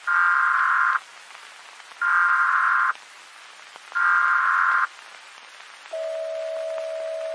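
Emergency Alert System SAME header: three one-second bursts of warbling data tones about a second apart, over a steady hiss. About six seconds in, a single steady attention tone starts and holds.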